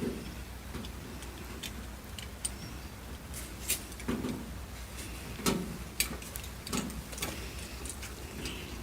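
Irregular small clicks and taps of metal doorknob parts being handled as the knob's long machine bolts are lined up and started by hand, with a few sharper knocks in the middle.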